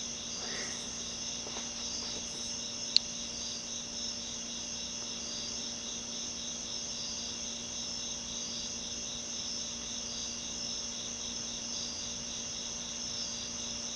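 Chirping insects, crickets by their steady high-pitched pulsing trill, over a low steady hum, with one sharp click about three seconds in.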